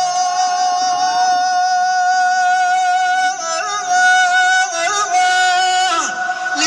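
Religious chant: a long high sung note held steadily for about three seconds, then a run of quick ornamented turns.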